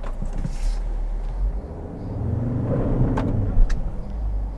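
Ford Endeavour's 3.2-litre five-cylinder diesel engine running, heard from inside the cabin, revving up and settling back down about halfway through as the SUV, stuck in soft sand, is driven to get free. A couple of sharp clicks near the end.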